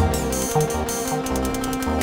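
Live electronic dance music played on hardware synthesizers and drum machines: a repeating synth bassline over a steady beat, with rapid high hi-hat ticks.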